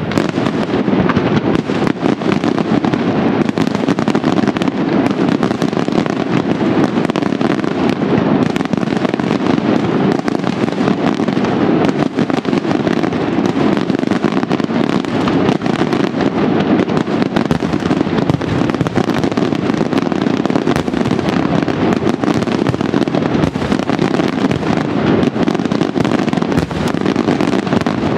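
A fireworks display in a dense, unbroken barrage: many explosions and crackling firecracker reports overlapping, with no let-up.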